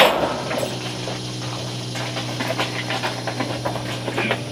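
Portable milking machine's vacuum pump running with a steady hum and hiss. A few light knocks in the second half come from a cow's hooves on concrete.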